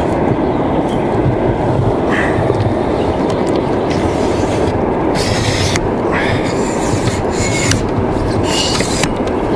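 Wind buffeting the microphone as a steady low rumble, with short rubbing and scraping sounds from hands handling a fishing rod, loudest about five, seven and nine seconds in.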